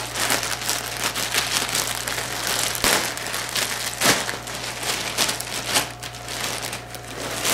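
Clear plastic packaging around a towel set crinkling and crackling as hands grip and pull it open, with a couple of sharper, louder crackles about three and four seconds in.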